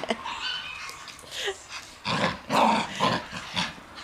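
Shiba Inus growling in play as they tug on a rope leash between their teeth, in several short bursts, the loudest about two seconds in.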